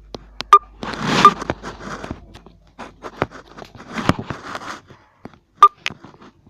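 Handling noise from a tablet being set in place and adjusted by hand: a string of sharp clicks and taps, with a burst of rustling about a second in.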